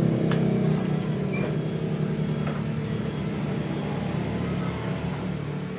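Yamaha NMAX 155 single-cylinder engine, bored up to 63 mm, running steadily while its aftermarket ECU is being set, slowly getting quieter. A few light clicks sound over it.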